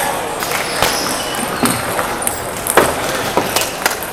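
Table tennis ball clicking off paddles and the table during a rally, the loudest hit about three seconds in, followed by a few quicker clicks near the end.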